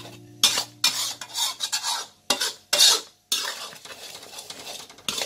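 A spatula stirring and scraping thick shrimp-paste sauce around a metal wok in a run of irregular strokes, working coconut sugar into the sauce until it dissolves.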